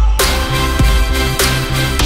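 Background electronic music with deep bass and a steady drum beat.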